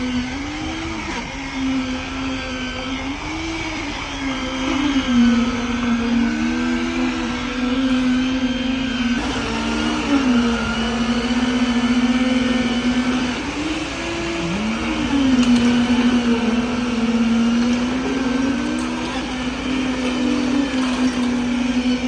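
A motor running at a steady high pitch. It briefly rises or dips about every few seconds, as if under changing load, typical of machinery at a concrete pour.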